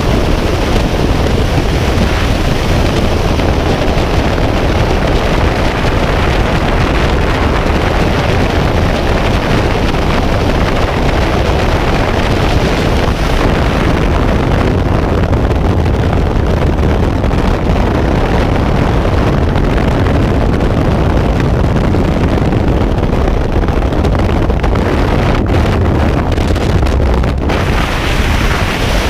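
Loud, steady rush of freefall wind buffeting a skydiver's camera microphone.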